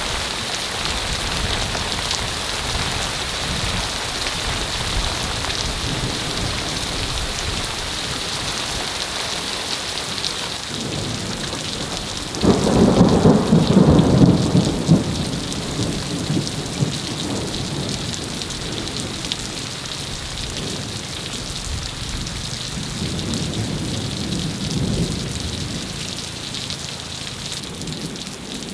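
Steady heavy rain falling during a hailstorm. About twelve seconds in, a loud roll of thunder breaks in and dies away over a few seconds, and a fainter rumble follows later.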